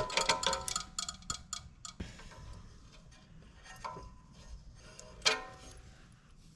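Metal parts and tools clinking and clattering: a quick run of ringing clinks in the first second and a half, then a few single clinks, the loudest a little past five seconds in.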